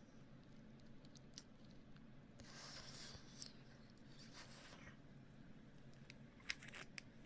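Faint ASMR mouth sounds close to the microphone: two soft breathy hisses, then a quick cluster of mouth clicks near the end.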